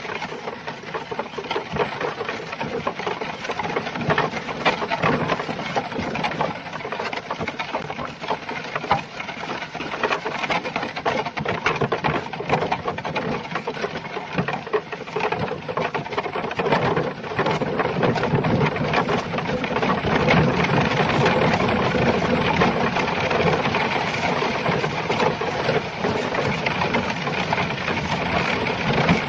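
Horse and cart on the move: hooves clopping and the cart's wheels and frame rattling in a dense, steady clatter, growing a little louder about seventeen seconds in.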